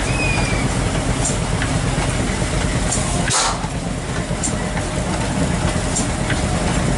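Large horizontal Ruston & Hornsby stationary engine running steadily, with a sharp click about every one and a half seconds and a heavier beat about three seconds in.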